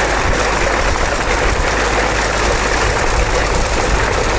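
Concrete pump engine running steadily while pumping concrete.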